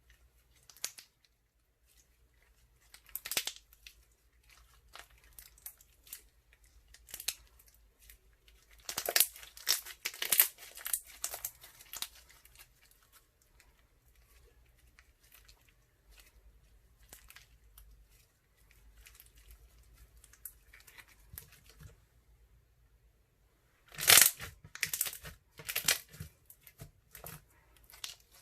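Crunchy slime made from clear glue being squeezed and stretched by hand, giving off bursts of crackling and popping air bubbles. The loudest bursts come about nine to twelve seconds in and again near the end, with scattered small snaps between.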